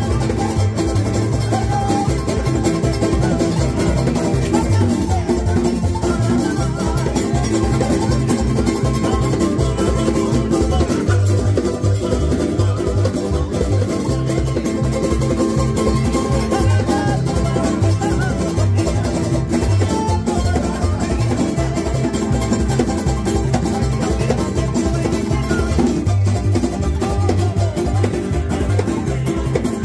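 Tahitian kaina string band playing a steady strummed rhythm on Tahitian ukuleles, electric and acoustic guitars, with a djembe hand drum beating along.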